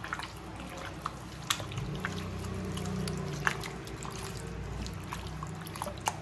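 A hand squishing and kneading raw chicken pieces in a yogurt and spice marinade in a glass bowl: soft wet squelching, with a few sharp clicks.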